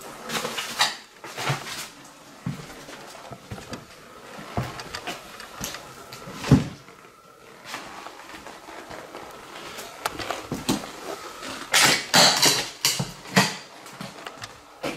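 Footsteps and movement through a debris-strewn room of a derelict house: irregular crunches, knocks and scrapes, with one heavier thump about six and a half seconds in and a cluster of louder crunching scrapes about twelve seconds in.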